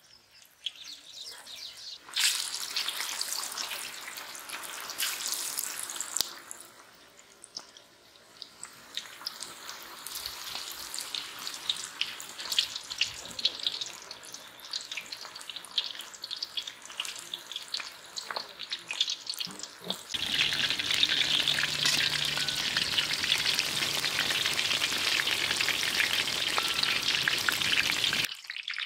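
Battered pakora pieces deep-frying in hot oil in a large iron kadai, with a dense sizzling crackle. The sizzle starts suddenly as pieces are dropped in, dips for a moment, then builds again. It grows louder and steadier about two-thirds of the way through.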